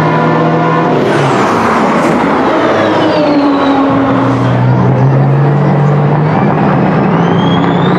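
Semi-truck diesel engines running hard in a drag race, a loud, steady engine drone. Near the end a rising whine builds as engines rev.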